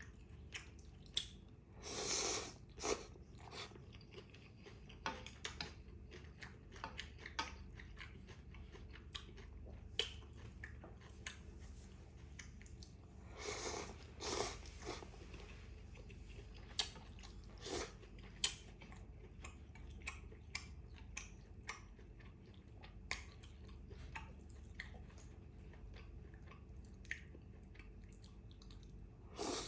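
Close-miked chewing of rice vermicelli noodles with beef, full of small wet mouth clicks. There are a few louder mouthfuls about two seconds in, around fourteen seconds in, and again right at the end.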